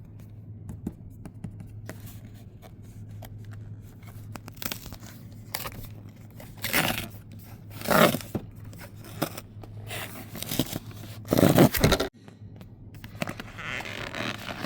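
Plastic wrap being cut and torn off a cardboard product box: scattered rips, scrapes and crinkles, the loudest a few seconds apart. A steady low hum underneath cuts off near the end.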